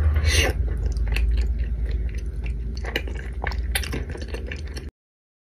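A person chewing a mouthful of food, with irregular crunchy clicks, cutting off abruptly into silence near the end.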